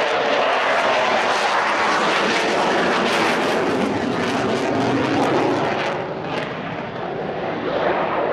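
F-35B Lightning II jet, its single F135 turbofan giving loud jet noise with a crackling edge. It eases about six seconds in and builds again near the end.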